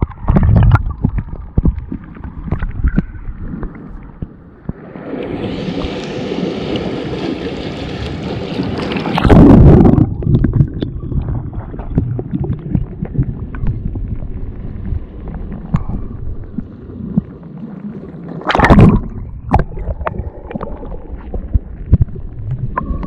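Seawater sloshing and gurgling at the shore, with wind rumbling on the microphone. A broader rush of water swells from about five to nine seconds, and two loud bursts stand out, one just before the middle and one about three-quarters through.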